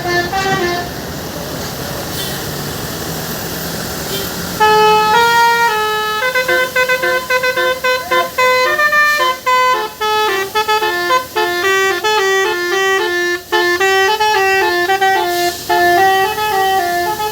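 Indonesian 'telolet' bus horn, a multi-trumpet horn, playing a quick melody of stepping pitches. It comes in loudly about four and a half seconds in, after a lower hum.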